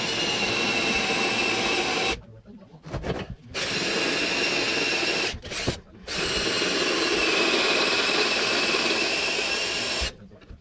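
Power drill boring out the bolt holes of a metal engine mount bracket, enlarging them so they line up. It runs in three bursts of a few seconds with a steady whine, stopping briefly about two and five and a half seconds in and again near the end.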